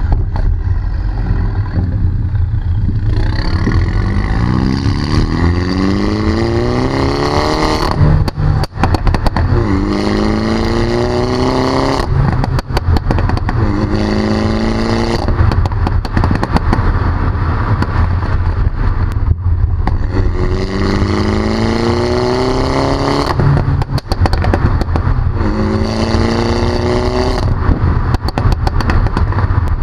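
Mini John Cooper Works (F56) 2.0-litre turbocharged four-cylinder through a Pro Tuning valved exhaust, heard close to the twin tailpipes. It accelerates repeatedly through the gears: the engine note rises for a few seconds, drops at each shift, then climbs again. Short sharp crackles come at some of the breaks, over a steady low rumble.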